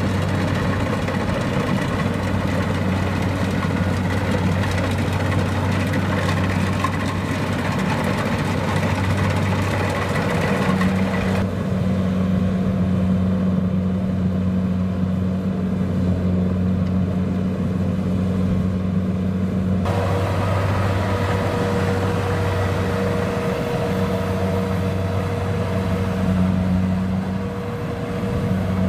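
Kubota DC-70 Plus rice combine harvester's diesel engine running steadily under load while harvesting: a constant low hum with a wide mechanical hiss over it. The hiss thins out abruptly about a third of the way in and comes back about two-thirds in.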